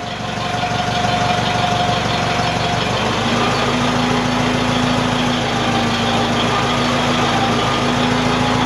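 Loader engine idling steadily, with a steady tone joining in about three seconds in.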